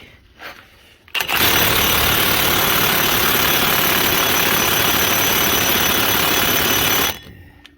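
Milwaukee Fuel cordless impact wrench hammering steadily on its highest setting against a front wheel hub bolt through an extension, starting about a second in and cutting off suddenly after about six seconds. The bolt does not break loose.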